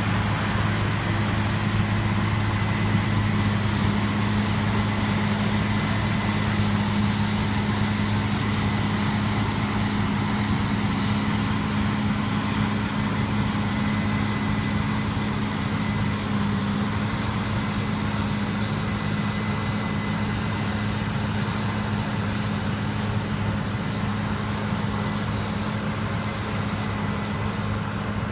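Combine harvester running steadily, a constant engine and machinery hum with a faint high whine above it.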